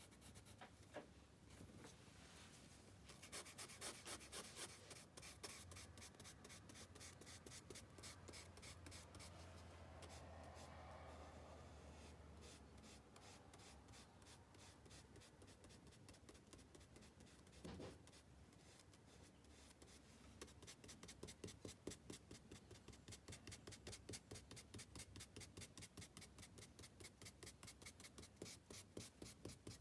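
Charcoal and a small brush rubbing on drawing paper: faint scratchy scrubbing strokes, settling in the second half into a quick, even rhythm of about four strokes a second.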